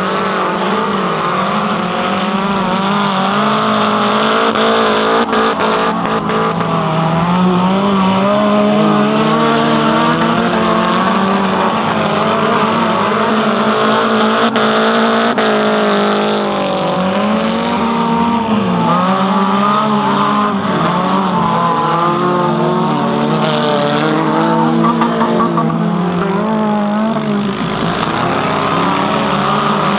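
Engines of wreck-race cars running and revving on a dirt track, several at once, their pitch rising and falling as they drive.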